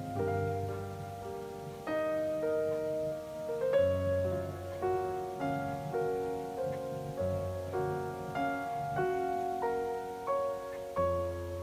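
Soft piano music: a slow melody of single notes over low bass notes.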